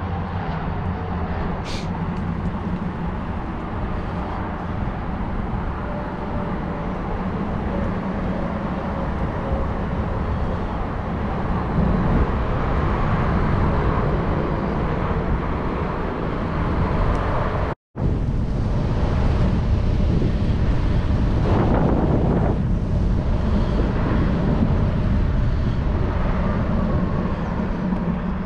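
Skatebolt Tornado electric longboard cruising on pavement: a steady rush of wheels rolling on asphalt mixed with wind on the microphone. The sound drops out for an instant about two-thirds of the way through.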